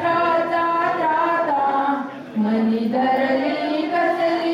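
Women singing a traditional song together, in long drawn-out notes, with a short break in the phrase about two seconds in.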